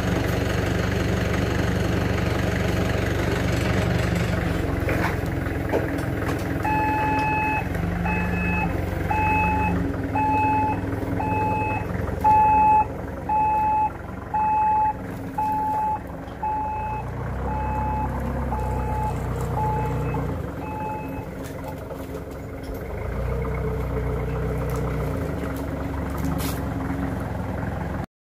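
Forklift engine running, with its warning beeper sounding a short tone about once a second for some fifteen seconds as the truck manoeuvres with a pallet load. The engine note swells a few times later on.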